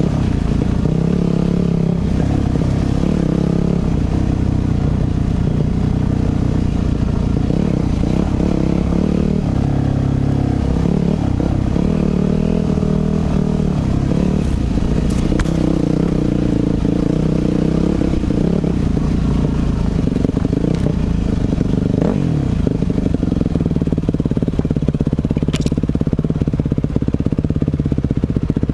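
2006 Yamaha 250 dirt bike's engine running hard on a trail ride, its pitch rising and falling over and over as the throttle is opened and rolled off.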